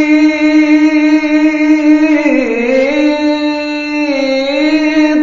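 A man's solo voice singing an Islamic ibtihal, holding one long melismatic note. Its pitch is mostly steady, then dips and turns in ornaments about two seconds in and again around four seconds.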